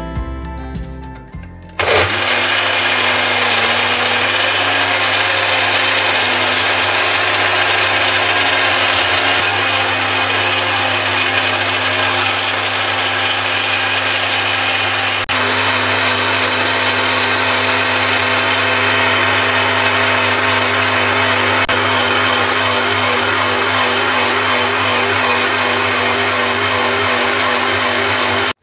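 Electric blender starting up about two seconds in and running steadily at full speed, crushing ice cubes with lemon juice, lemon peel, sugar and water into a frothy slush. It dips for an instant about halfway, then runs on and stops at the very end.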